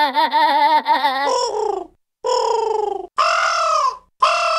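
A voice-like trembling warble for about the first second, then four drawn-out cries, each falling in pitch, like cawing.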